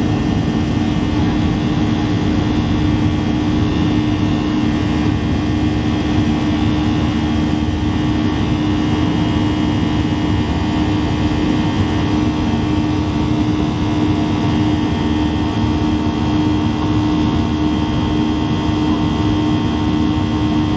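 Boeing 737-800's CFM56-7B turbofan engines running at takeoff power during the initial climb, heard inside the cabin over the wing. It is a steady drone with a strong low hum and a set of high, whining fan tones above it.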